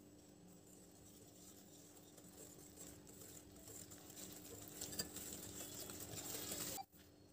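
Wire whisk stirring powdered sugar mixture in a glass bowl: a faint scratchy swishing that grows louder, with a few clicks of the wires against the glass. It cuts off suddenly near the end.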